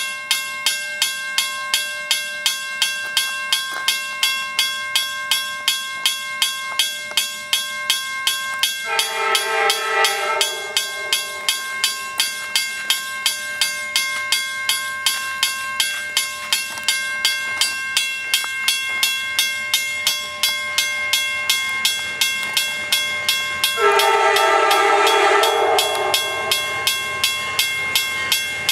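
A grade crossing bell starts ringing as the crossing activates, keeping up a steady beat of about two strikes a second. Over it, the horn of the Amtrak Downeaster's leading NPCU cab car sounds two long blasts for the crossing, the first about nine seconds in and the second, a little longer, about twenty-four seconds in.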